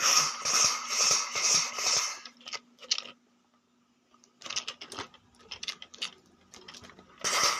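A person imitating gunfire with his mouth: a rapid string of hissing 'kshh' bursts, about four a second, for the first two seconds and again starting near the end. In between are scattered clicks and handling noise from a plastic toy gun.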